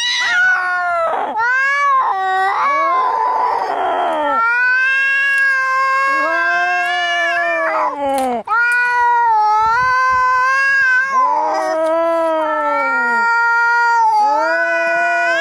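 Angry cats caterwauling: long, wavering yowls that rise and fall in pitch, one after another, with a harsh hiss about three seconds in.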